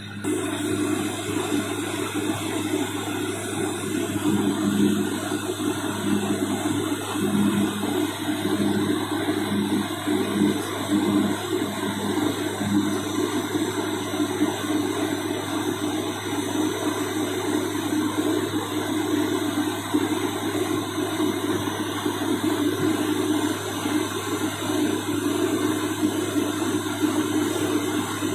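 Cabin noise inside a turboprop airliner on descent: a loud, steady rushing from the propellers and engines over a deep steady hum, with a throbbing that quickens between about four and thirteen seconds in.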